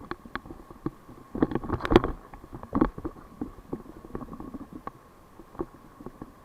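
Muffled, irregular knocks and thumps, with a cluster of heavier ones about one and a half to two seconds in and another near three seconds, over a faint steady hum.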